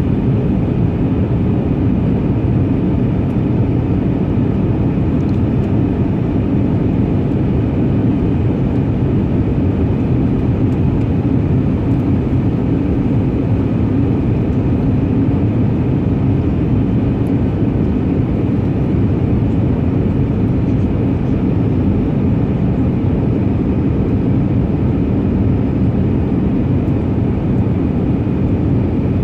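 Airbus A320 in flight heard from inside the cabin: steady, deep engine and airflow noise, even throughout.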